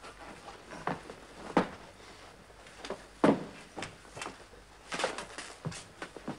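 A run of irregular knocks and clatters in a small room, about a dozen of them, with the loudest a little after three seconds in and a quick cluster around five seconds.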